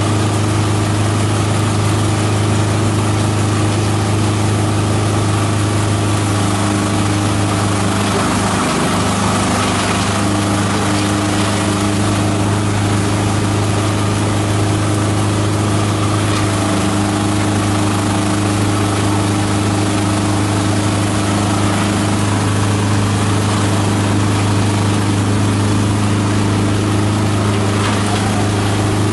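Multi-purpose chopper/shredder machine running steadily under load, shredding leafy green branches fed into its hopper: a loud, even mechanical drone with a strong low hum.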